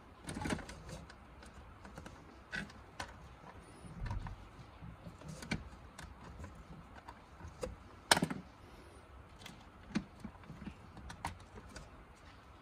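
Scattered plastic clicks and knocks from a Hyundai Palisade side mirror housing and its mounting bracket being handled and turned over, the sharpest knock about eight seconds in.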